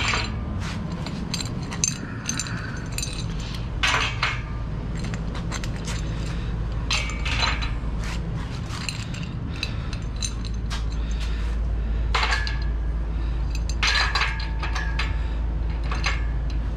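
Metal clinks and knocks as aluminium corner brackets are handled and set against T-slot aluminium extrusions, coming in scattered clusters over a steady low hum.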